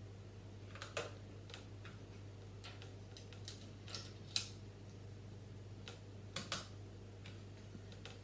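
LEGO bricks being handled and pressed together: scattered sharp plastic clicks, about a dozen at uneven intervals, the loudest a little past four seconds in, over a steady low hum.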